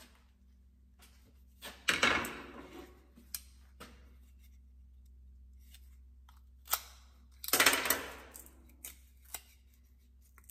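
Hand-tool work on a wooden hammer handle and its wedge: two rasping, scraping noises about five seconds apart, each lasting about a second and fading, with scattered sharp clicks and taps of wood and metal.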